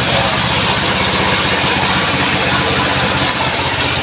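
Horizontal band sawmill running steadily without cutting, its drive and blade turning, with a fast even low pulsing under a steady machine noise.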